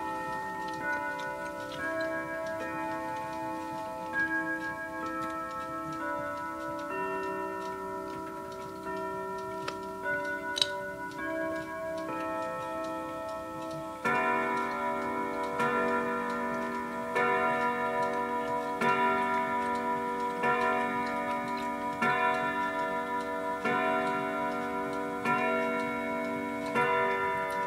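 Grandmother clock chiming its hour melody for about fourteen seconds, then striking nine o'clock: nine evenly spaced strokes about a second and a half apart, each ringing on.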